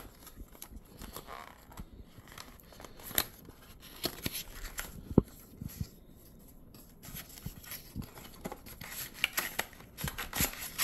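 Cardboard retail box being opened by hand: the end flap pulled open and a plastic parts tray slid out, making scattered clicks, scrapes and paper rustles, with one sharp click about five seconds in.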